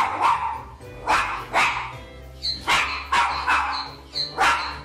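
Small white dog barking over and over, short sharp barks about two a second.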